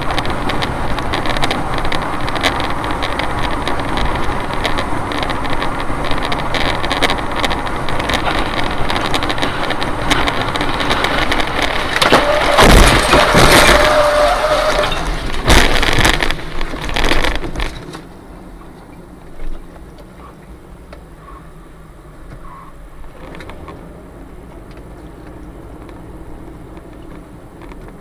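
Dashcam audio of a Tu-204 airliner crashing onto a highway and breaking apart: a loud rushing, grinding noise, with the heaviest crashes of wreckage about halfway through. It then drops suddenly to the much quieter steady road noise of the car driving on.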